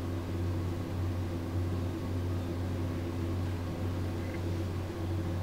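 Steady low hum with an even hiss: background room noise, with no distinct events.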